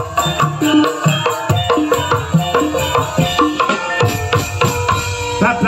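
Javanese gamelan accompaniment playing a quick run of struck metal notes over hand-drum strokes.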